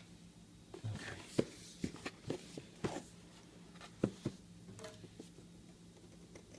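Handling of a cardboard trading-card box: a scatter of short taps, clicks and light knocks as it is opened and the packs are moved about, most of them between about one and four seconds in.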